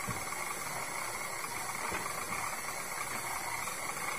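KitchenAid Classic stand mixer's motor and gearbox running steadily, its dough hook kneading bread dough in the steel bowl, with a faint knock about two seconds in.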